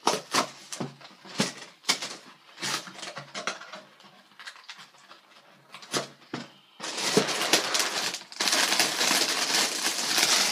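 A cardboard cereal box being opened: scattered clicks and scrapes as the top flaps are pried up. From about seven seconds in, a loud, continuous crinkling as the plastic inner bag is pulled and torn open, with one short break.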